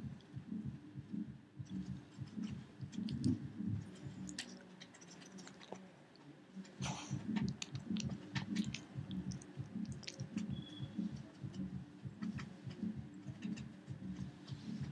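A Pekingese chewing and gnawing on a rawhide treat: rhythmic chewing a few times a second, with sharp little clicks.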